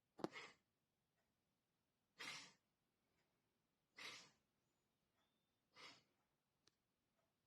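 Chronic cough: four short, harsh, breathy coughs, one about every two seconds, the first the loudest and sharpest.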